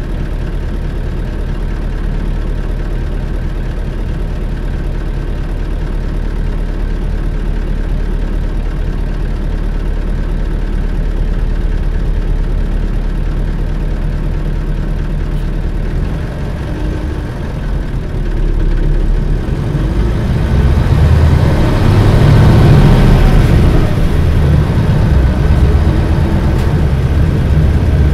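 The diesel engine of a 1997 Isuzu Cubic KC-LV380L city bus, heard from inside the bus, idling steadily, then about two-thirds of the way in revving up and getting louder as the bus pulls away, its note rising near the end.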